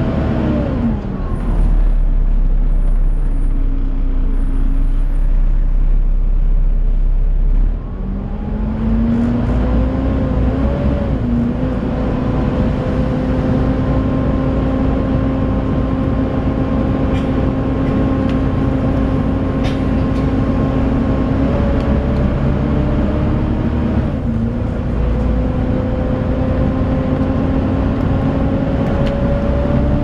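Volvo B7TL double-decker bus's six-cylinder diesel heard from inside the upper deck. It slows with a falling pitch, then idles with a low rumble for several seconds. About eight seconds in it pulls away, and a steady whine from the loud 'hoover' cooling fan runs over the engine.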